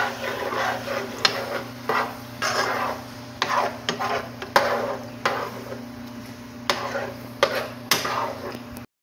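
A slotted spatula stirring and scraping through ground beef and diced tomatoes in a nonstick skillet, in uneven strokes with sharp clicks as it knocks against the pan. A steady low hum runs underneath.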